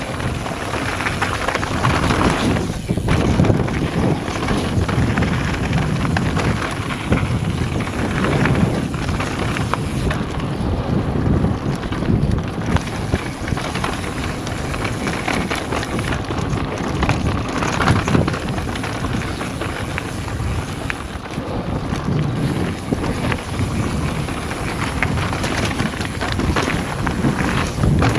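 Wind buffeting an action camera's microphone as a mountain bike descends a rough dirt and gravel trail at speed, with tyres crunching over stones and the bike rattling and clattering over bumps throughout.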